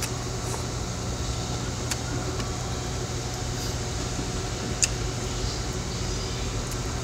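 Eating pho: one soft slurp of rice noodles just after the start, and a few light clicks of chopsticks against the bowl, the sharpest about five seconds in, over a steady low hum.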